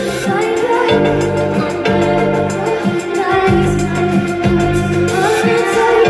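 Music: sustained organ-like keyboard chords over a repeating bass line, with a steady beat.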